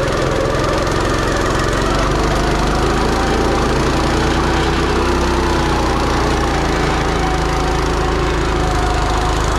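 Small gasoline engine on a piece of landscaping equipment running steadily at full throttle, just after being started. It is a machine that has been acting up for a while but still runs.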